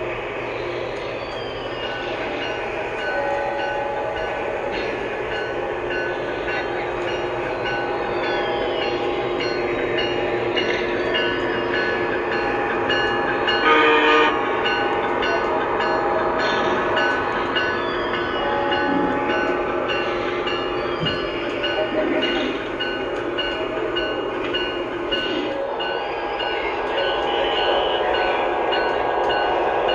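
Lionel O-gauge Acela model running on its onboard electronic sound system, which plays steady electric-train running sounds over the rumble of the model's wheels on three-rail track. A short horn blast sounds about halfway through.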